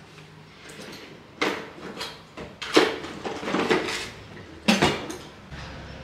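Metal parts clanking and rattling as they are handled: several sharp clanks with short ringing, the loudest about three seconds in. A low steady hum comes in near the end.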